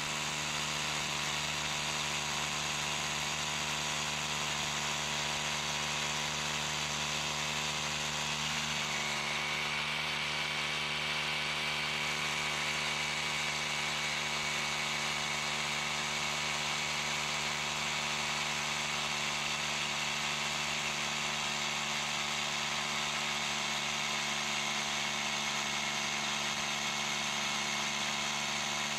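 Battery power tool's electric motor running steadily at one constant pitch, with no hammering blows.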